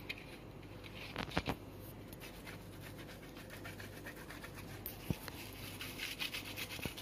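Half a lemon rubbed over the fine mesh of a stainless-steel tea strainer to lift tea stains, a faint scratchy rubbing. A few light knocks come about a second in, and the rubbing turns into quick repeated strokes over the last two seconds.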